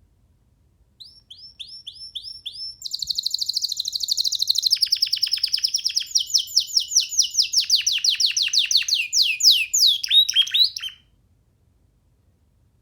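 A young domestic canary sings one long phrase. It starts with a few separate rising notes, breaks into a fast trill, then slows to repeated downward-sweeping notes, and ends with a few lower notes before stopping near the end.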